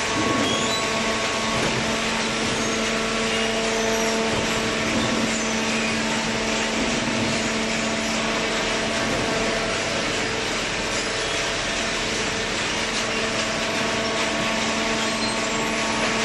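Horizontal waste paper baler running: a steady mechanical hum and whine from its hydraulic power unit, with a constant noisy wash and small clatters over it.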